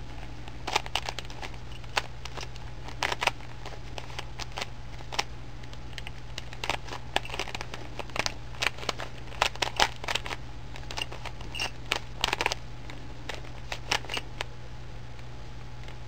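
Rubik's Cube layers being turned by hand: irregular runs of quick plastic clicks and clacks with short pauses between them, over a steady low hum. The turning stops shortly before the end.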